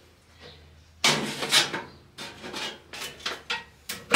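Steel bandsaw blade being worked off its wheels and out through the table slot: irregular scraping and rattling of the blade against the saw's metal, starting about a second in, with a ringing metallic clang right at the end as the blade comes free.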